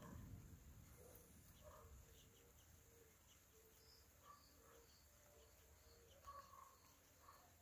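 The last of a thunder rumble fades out in the first second, leaving near silence with faint, scattered bird chirps.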